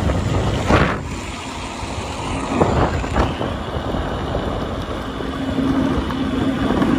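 Segway Ninebot GoKart Pro electric go-kart driving fast on asphalt: a steady rumble of the tyres and moving air, with short louder rushes about a second and three seconds in, and a steady low hum coming in about five seconds in.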